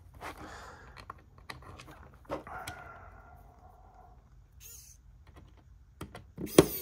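Scattered light clicks and soft scraping from hands handling the plastic parts of a VHS cassette shell, with one louder knock near the end.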